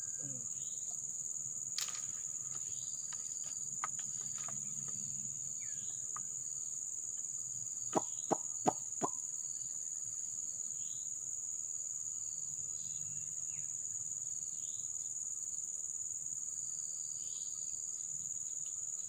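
Steady high-pitched drone of forest insects, with faint short chirps here and there. About eight seconds in, four sharp clicks come in quick succession, louder than the drone.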